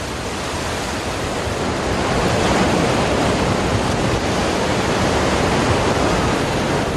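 Ocean surf and strong onshore wind: a steady rushing noise that swells a little over the first couple of seconds.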